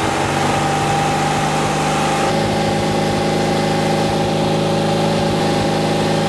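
1964 Porsche 356C air-cooled flat-four engine running steadily at a raised speed of about 3,000 RPM, held there to check the ignition timing at full advance. Its note shifts slightly about two seconds in.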